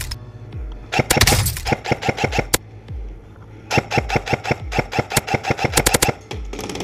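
ASG CZ Scorpion EVO 3 A1 airsoft electric gun firing: a string of rapid shots about a second in, then a longer run of quick, evenly spaced shots, about eight a second, through the middle, each shot a sharp mechanical clack of the gearbox cycling.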